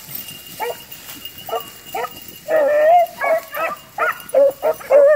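A pack of beagles baying as they trail a rabbit: short separate barks from several dogs, one longer drawn-out bawl about two and a half seconds in, and the barking coming faster near the end.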